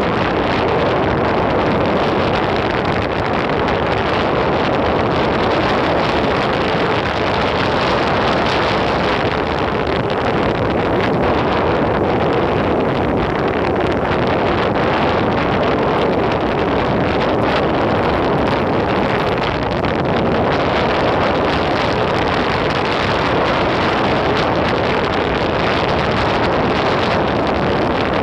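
Steady rushing noise of an Enertion Raptor 2 electric skateboard cruising, its wheels rolling on pavement, with wind buffeting the phone's microphone.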